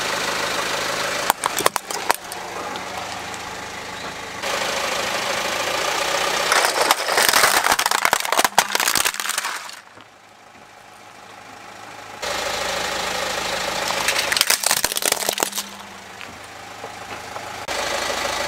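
Car engine idling as a tyre rolls slowly over plastic toys on gritty concrete, with clusters of sharp cracks and crunches as the plastic breaks. The background changes abruptly several times.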